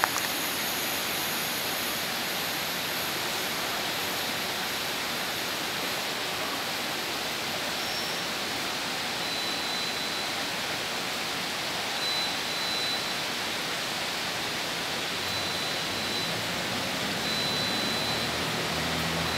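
Steady, even hiss of railway station platform ambience, with faint high tones coming and going and a low hum building over the last few seconds.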